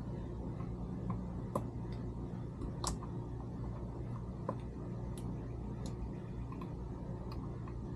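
Small hand tools and parts clicking and tapping against the transmission control module, about eight separate clicks at irregular intervals, the sharpest about three seconds in, over a steady low hum.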